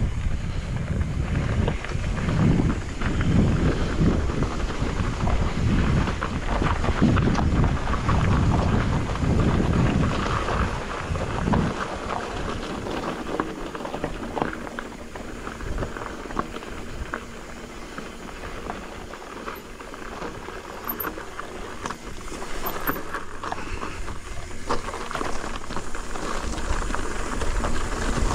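Wind buffeting the action camera's microphone while a Pivot Firebird mountain bike rolls over loose gravel and rock, its tyres crunching and the bike rattling. The wind gusts are heavy for the first half, then ease off and pick up again near the end.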